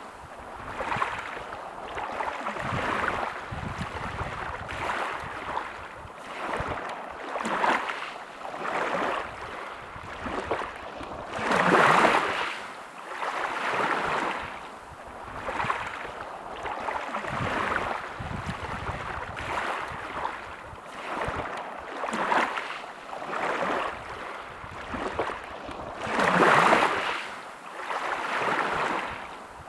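Small sea waves washing in on the shore, the noise swelling and fading every second or two, with two bigger waves breaking, one about twelve seconds in and one near the end.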